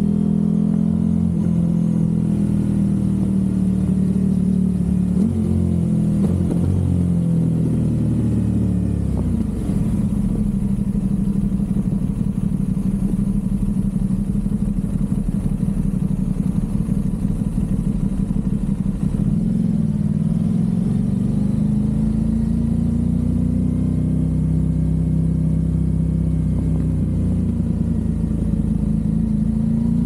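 Aprilia RS660's parallel-twin engine through a Mivv Delta Race exhaust, heard from on the bike while riding. The revs fall in the first third as it slows, stay low and steady for about ten seconds, then climb gradually as it pulls away through the last third.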